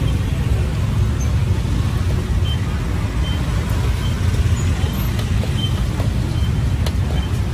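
Steady low rumble of street traffic, with a few faint short high peeps now and then and a single sharp click near the end.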